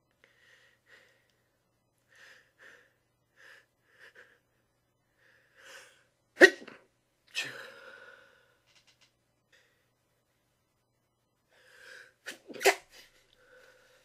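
A person trying to sneeze quietly: a run of short catching breaths builds up to a stifled sneeze about six seconds in, followed by a second burst a second later. Near the end come more catching breaths and another pair of sneezes.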